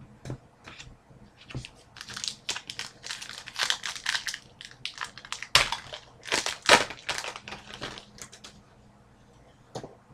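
Trading cards and their pack wrapper being handled: a run of crinkling, rustling strokes, densest in the middle, with a single sharp click near the end.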